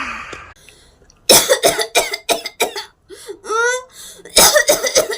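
A person coughing in two fits of quick, hard coughs, with a short vocal sound rising in pitch between them.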